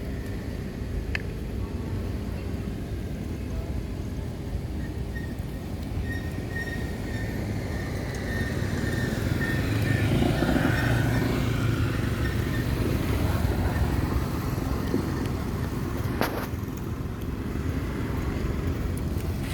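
Roadside traffic: a steady low rumble, with a vehicle passing by that is loudest about ten seconds in.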